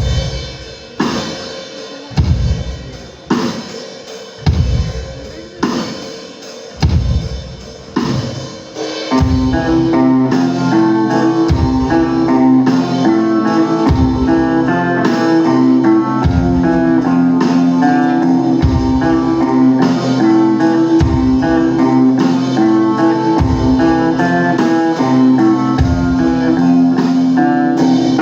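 Rock band playing live on electric guitars and drum kit. It opens with single heavy chord-and-drum hits about a second apart, each left to ring out. About nine seconds in, the full band breaks into a steady, driving riff.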